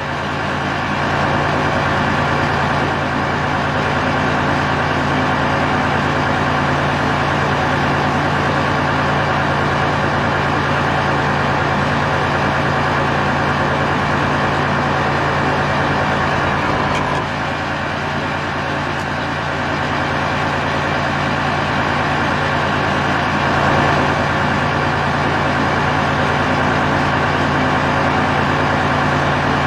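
Tank engine idling steadily: an even, low-pitched running sound that dips slightly in level a little past halfway through.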